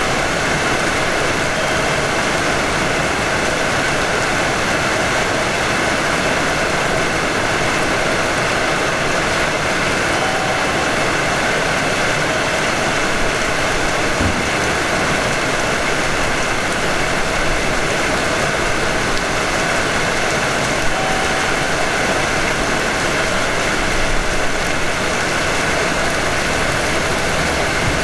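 Steady hum and hiss of a Hanshin 5500 series electric train heard from the cab, holding even throughout with no rising or falling whine.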